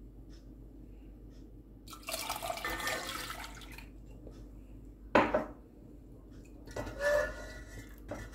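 Thin, still-runny pine-shoot syrup poured from a mug through a strainer into a pot for about two seconds, then a sharp knock and a ringing clink of the mug and pot.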